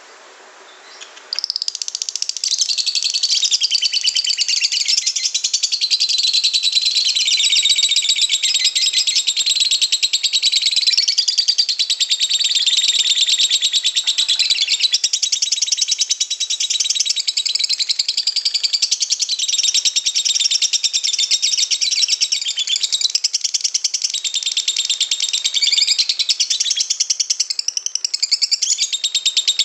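Lovebird singing a long, unbroken 'ngekek': a rapid, high-pitched chattering trill that starts about a second and a half in and carries on without a pause.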